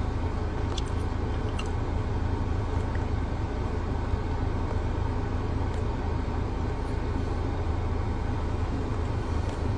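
Steady low rumble and hiss of a running car, heard from inside its cabin.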